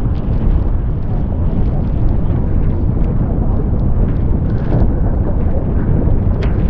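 Strong wind buffeting the microphone in a steady low rumble, with water rushing and splashing past a fast-sailing skiff.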